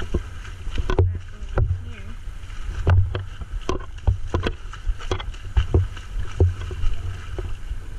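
Shallow river water sloshing and splashing against a camera held at the surface, with irregular knocks and low thumps about once or twice a second.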